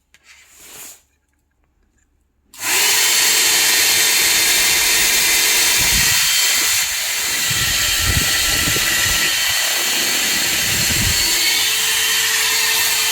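Portable hair dryer switched on about two and a half seconds in, then blowing steadily: a loud rush of air over a steady motor whine. Its level dips slightly a few seconds after it starts, and the air stream gusts against the microphone now and then.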